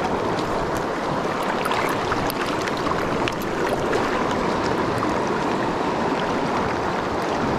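Fast-flowing mountain river rushing steadily over a rocky riffle.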